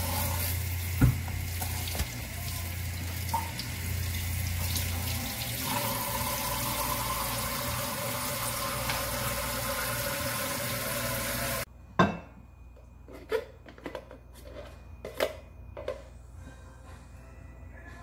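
Kitchen tap running into the sink as a cauliflower is washed, with a low hum under it for the first five seconds. The water sound cuts off suddenly about twelve seconds in, followed by scattered light clicks and knocks.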